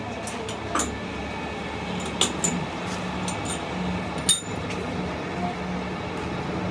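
A steady low engine hum with a few sharp metallic clinks of metal struck on metal, the loudest about four seconds in.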